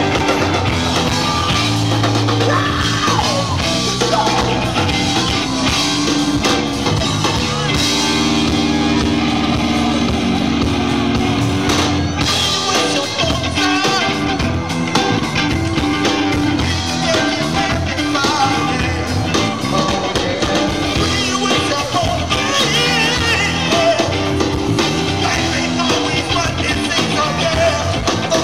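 Live blues-rock band playing loudly.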